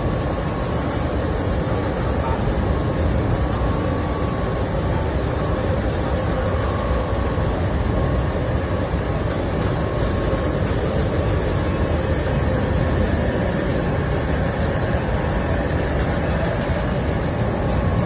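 Steady industrial machinery noise of a running textile finishing plant: an even rumble and hiss with a faint thin whine above it.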